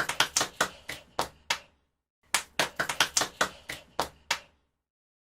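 Hands clapping: two runs of about ten sharp claps in an uneven rhythm, the second run a repeat of the first after a short gap.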